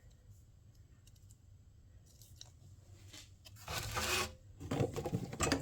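Work on a small engine carburetor: after a few quiet seconds, a short loud scraping rasp, then a run of clicks and rattles of small metal parts being handled, while a stuck needle valve is being worked at.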